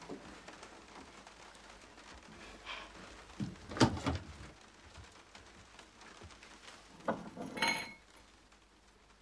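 Hard objects being knocked and set down: a sharp knock with a short clatter about four seconds in, then a few clicks and a brief ringing clink about three seconds later.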